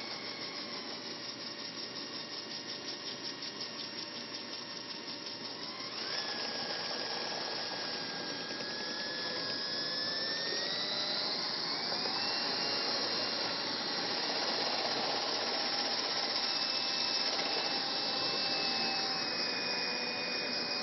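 Electric drill running steadily, spinning a dryer vent cleaning wand and 4-inch brush inside a lint-clogged dryer vent. Its whine steps up in pitch about six seconds in and rises again around twelve seconds.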